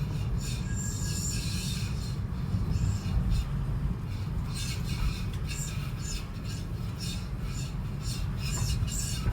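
Abnormal metallic noise from a 30-series Toyota Prius: an irregular high-pitched scraping and rasping that comes and goes over a steady low rumble, a noise whose cause the owner does not know.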